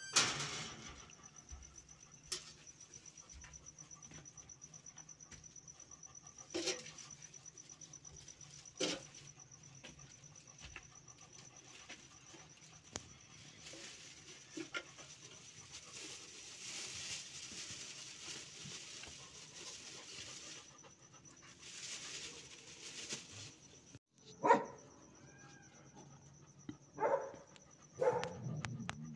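A dog giving short barks several times, a few seconds apart, loudest right at the start and again about two thirds of the way in.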